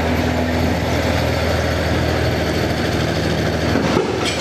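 Tank diesel engines running close by, a steady low engine note with clanking and rumble.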